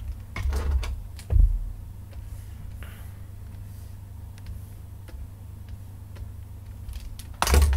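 Scattered clicks of a computer mouse and keyboard over a steady low hum, with a low thump about a second and a half in and a louder thump with a short burst of noise near the end.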